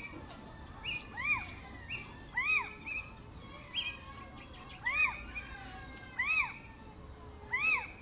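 Little owl (Athene noctua) giving its call, not its song: about five loud arched notes that each rise and fall, a little over a second apart. Shorter flat notes fall between them, over the steady hiss of the field recording.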